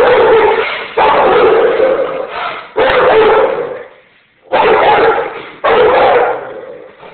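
Year-old Rottweiler barking repeatedly in a guarding display, about five loud barks, each starting suddenly and trailing off in the echo of a bare tiled room.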